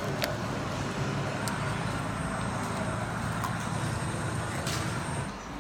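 Steady low rumble of background noise, with a few faint clicks.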